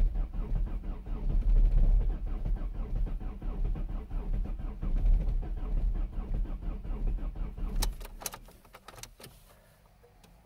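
Volkswagen 1.9 TDI PD four-cylinder turbodiesel idling cold at about −17 °C with an even, rapid clatter, then stopping about eight seconds in. A few sharp clicks follow as the engine falls quiet.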